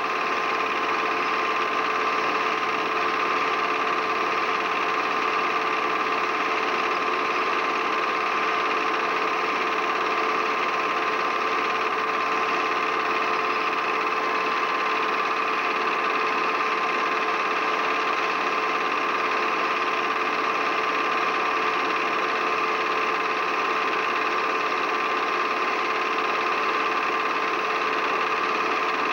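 Film projector mechanism running steadily, with an even machine hum that does not change for the whole stretch.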